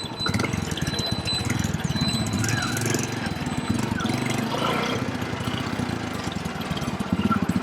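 Small single-cylinder four-stroke motorcycle engine running steadily, with quick even firing pulses.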